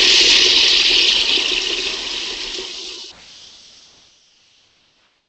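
Food processor chopping whole pecans, its motor and blades making a loud, even grinding whir that thins out, drops sharply about three seconds in and dies away to near silence.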